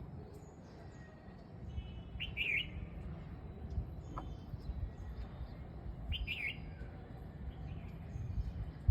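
A songbird calling: a short, quick, warbling call, repeated about four seconds apart, with fainter high chirps between.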